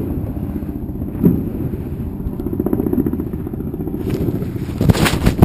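Muffled, steady low rumble of a motorboat's engine heard through a covered camera, with rubbing and knocking of the camera being handled during the last second and a half.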